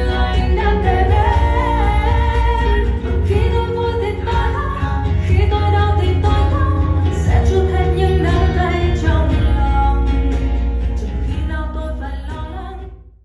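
A Vietnamese song with singing and heavy bass, played on a Harman/Kardon Citation 200 speaker, fading out at the end.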